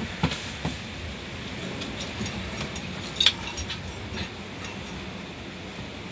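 Automatic car wash heard from inside the car: a steady running noise from the wash equipment, with scattered sharp taps and knocks on the car body. The loudest taps come just after the start and about three seconds in.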